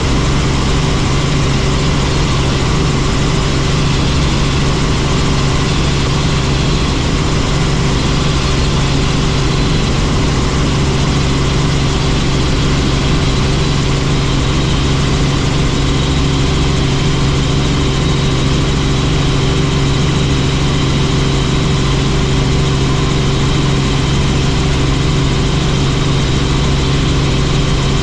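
Helicopter engine and rotor running with a steady, unchanging drone and a constant low hum.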